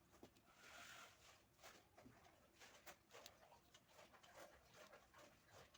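Near silence: faint room tone with a few soft scattered clicks.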